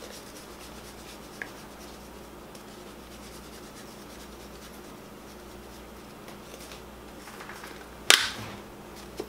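Taco seasoning mix being shaken from its packet onto ground turkey in a stainless steel skillet: faint, quiet rustling and scratching, then one short loud noise about eight seconds in.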